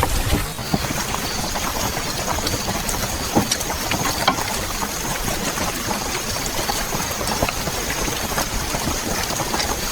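Steady rain-and-crackle ambience: a dense even hiss full of small ticks and crackles, with a faint steady high tone coming in about a second in.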